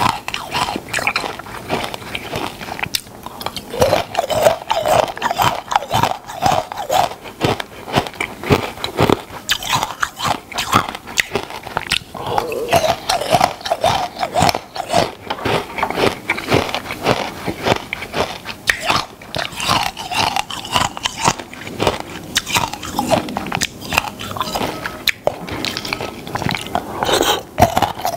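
Close-up crunching and chewing of ice (icicles): repeated bites and crackling crunches in an uneven rhythm.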